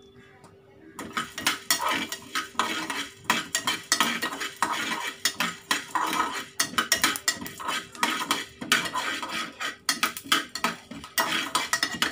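A steel spoon scraping and clinking against a steel pot while stirring coriander seeds as they dry-roast, starting about a second in. The strokes are quick and irregular, with the seeds rattling over the metal.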